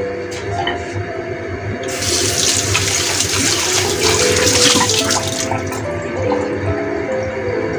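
Running water, like a tap, rushing for about three and a half seconds starting about two seconds in, over background music.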